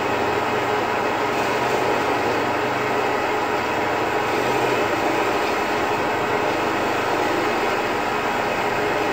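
Benchtop bandsaw running steadily and cutting through thick blockboard, the blade noise continuous with a low motor hum beneath it.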